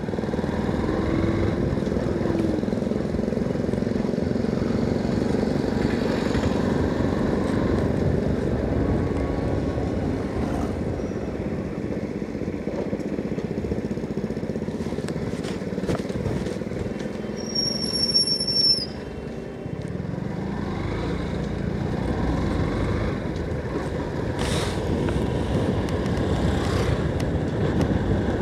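Motorcycle engine running at riding speed, mixed with steady wind and road noise. About two-thirds of the way through, a short high-pitched tone sounds for about a second.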